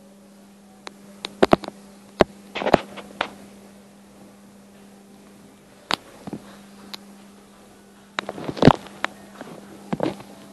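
A steady electrical-sounding hum, with irregular sharp clicks and knocks in small clusters. The knocks are the loudest sounds.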